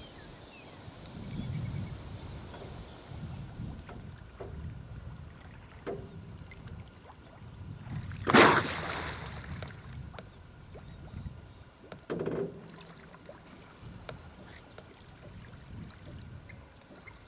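Low, steady rumble of a slowly moving game-drive vehicle, with scattered knocks and a short, loud hiss about eight seconds in.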